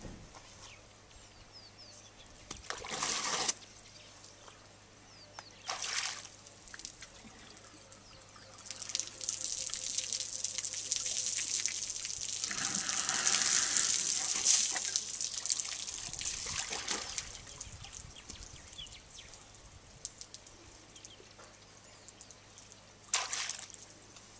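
African elephant drinking from a swimming pool: short splashy bursts as its trunk draws water, then a longer stretch of water pouring and splashing, loudest past the middle, as it empties the trunk into its mouth.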